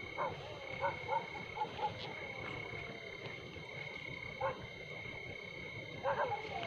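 Dogs barking faintly: a quick run of barks in the first two seconds, one more about halfway and a few near the end. Under them runs a steady high chirring of night insects.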